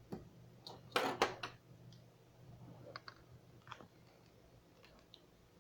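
A handful of sharp clicks, the loudest pair about a second in and fainter ones later, over a faint low steady hum.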